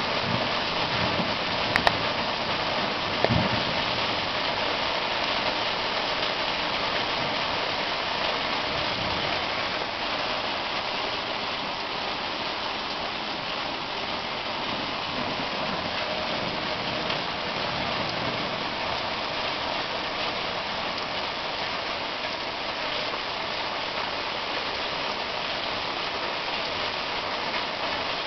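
Heavy rain pouring down steadily during a thunderstorm, with two short sharp clicks about two and three seconds in.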